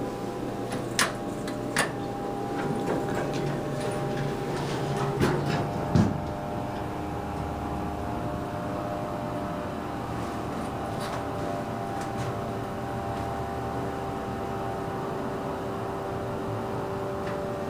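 Schindler 300A elevator doors closing, with sharp clicks about one and two seconds in and a thud about six seconds in. Then the car rides down with a steady hum and a faint whine.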